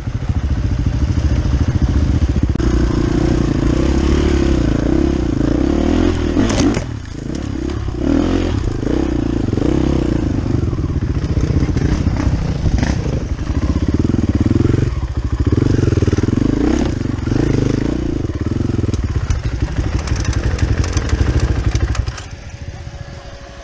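A motor vehicle's engine running steadily, with a few sharp knocks, until it drops away about 22 seconds in.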